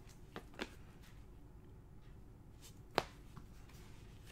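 Basketball trading cards being flipped through in gloved hands: a few short sharp card clicks, two within the first second and the loudest about three seconds in.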